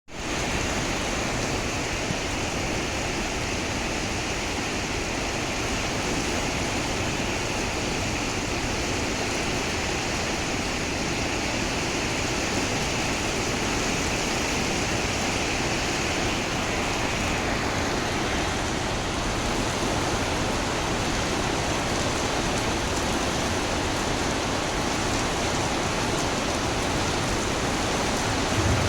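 Steady rain falling, an even continuous hiss; a brighter edge to the hiss eases off a little past the halfway point.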